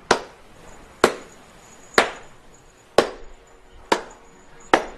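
Slow hand clapping: six sharp claps, about one a second, each fading out briefly.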